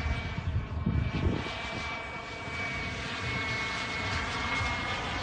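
Radio-controlled model jet in flight, its engine giving a steady high-pitched whine over a low rumble.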